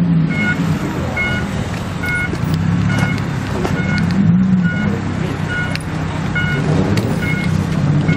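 Exhaust of a lowered Toyota Mark X's V6 rumbling low as the car creeps slowly over a curb, its note rising and falling a little with light throttle. A short beep repeats about every three-quarters of a second alongside.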